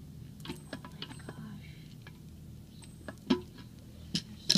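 Scattered light clicks and taps of hand tools on a toilet's metal tank bolts and nuts, with a few sharper metallic clinks about three seconds in and near the end.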